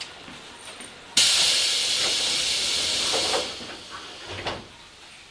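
Tobu 8000 series train's pneumatic doors closing: a sudden loud hiss of air starting about a second in and lasting about two seconds, then a thud near the end as the doors shut.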